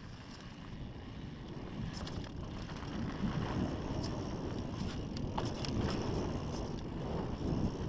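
Mountain bike rolling fast over a dirt singletrack, its tyres rumbling on the ground, with wind buffeting the microphone. Scattered sharp clicks and rattles from the bike come around two seconds in and again past the middle.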